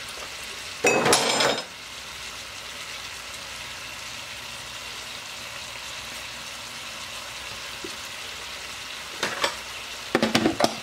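Shaved pork frying in a nonstick skillet with a steady sizzle. There is a short clatter about a second in and a few quick clinks near the end.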